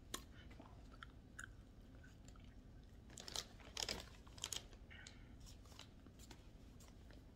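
Faint mouth sounds of a person sipping through a plastic straw from a paper carton: soft wet clicks of lips and tongue, with a few louder short crackles about three to four and a half seconds in.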